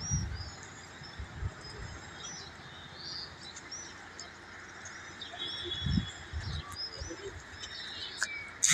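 Small birds chirping, with many short overlapping calls and quick up-and-down whistled notes.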